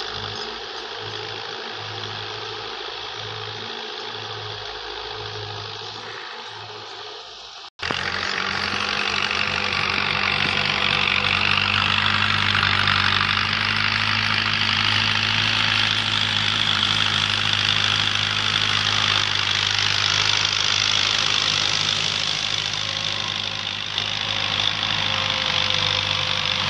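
New Holland 640 tractor's diesel engine running steadily under load as it pulls a disc plough. At first it is fainter with a pulsing beat. After a sudden brief cut-out about eight seconds in, it is much louder and closer.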